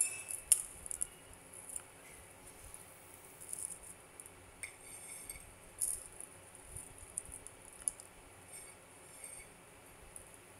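Crushed Oreo cookie pieces sprinkled by hand into a plastic container: scattered light ticks, clinks and crinkles, with one sharp click about half a second in.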